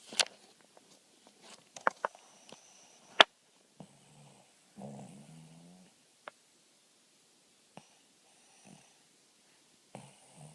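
Dog snoring in its sleep: a few separate snoring breaths, the longest about a second long, five seconds in. Several sharp clicks come in the first few seconds, the loudest about three seconds in.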